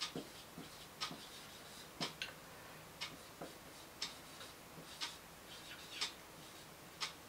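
Whiteboard marker writing in short, faint scratchy strokes, with faint regular ticks about once a second.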